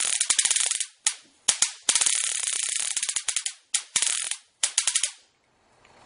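A 95,000-volt stun gun arcing across a reed switch's terminals: loud electric crackling in about six bursts, the longest about two seconds. The surge welds the reed switch's contacts permanently closed.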